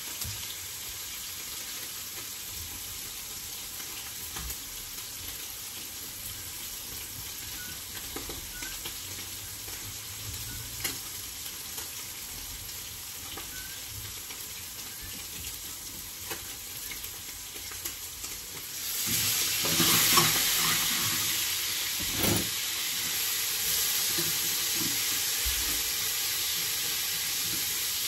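Vegetables sautéing in a frying pan with the steak: a faint steady sizzle that turns much louder about two-thirds of the way through and stays loud, with a few sharp knocks of a utensil against the pan.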